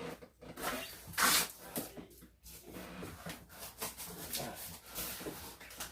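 Cardboard scraping and rustling as an inner cardboard box is slid out of an outer shipping box, in a series of short scrapes with the loudest about a second in.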